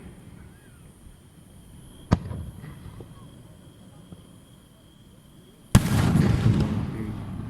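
Aerial fireworks exploding: a single sharp bang about two seconds in, then a louder bang near the end trailing into about a second of rumble and crackle.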